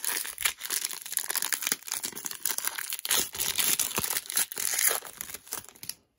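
Shiny wrapper of a 2019 Donruss Optic baseball card pack being torn open and crinkled by hand, a dense crackling that stops near the end as the cards come out.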